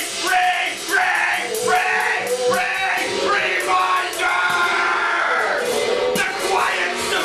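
Improvised ensemble music for bassoon, guitar and percussion. A pitched figure repeats about twice a second for the first three seconds, then gives way to longer held tones, over scattered sharp percussive clicks.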